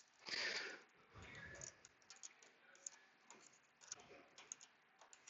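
Faint scattered small clicks, with a brief scrape about half a second in, from a battery terminal clamp being fitted back onto the post and tightened by hand tool.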